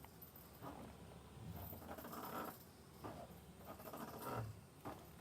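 A man's hard breathing while doing push-ups, a series of breaths roughly one a second, as he tires mid-set.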